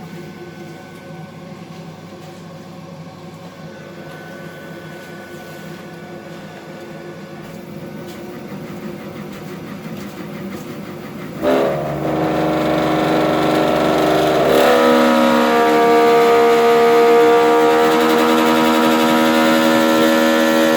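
Viessmann gas boiler humming: a drone of several steady tones that swells suddenly about halfway through, wavers for a few seconds, then holds loud and steady. The hum comes from deposits or a film inside the heat exchanger.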